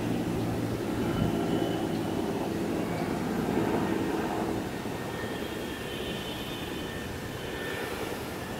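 Aircraft engines droning steadily as the aircraft flies past, easing off slightly in the second half.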